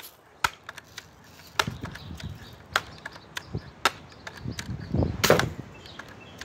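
Pellet gun being handled, with scattered sharp clicks and knocks, then a single pellet-gun shot about five seconds in, the loudest sound.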